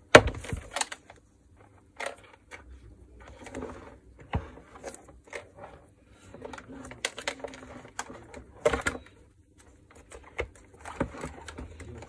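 Handling noises: scattered clicks, knocks and rustles as a power cable and wires are pressed and routed into the plastic motor housing of a Makita VC2512L vacuum cleaner, with a sharp click near the start.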